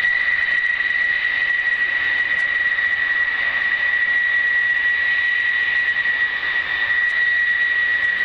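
Jet aircraft engine running with a steady high whine over a broad rush of noise.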